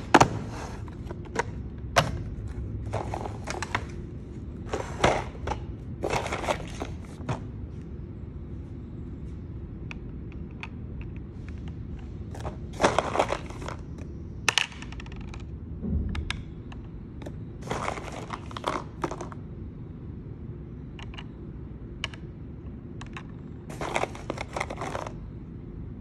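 Hard plastic bento box being handled: irregular sharp clicks, taps and short rustles as the lid is opened and tiny miniature bottles are set down in its clear plastic compartments, over a steady low hum. The loudest click comes right at the start.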